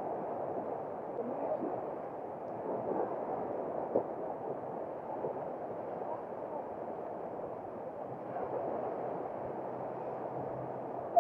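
Steady, muffled wash of small surf breaking on the shore, with one short faint knock about four seconds in.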